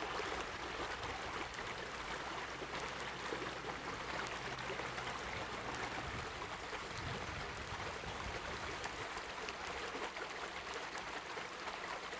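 Shallow creek water running steadily over rocks and gravel.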